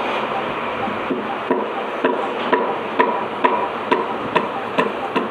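Regular sharp knocks, about two a second, over a steady rush of wind noise.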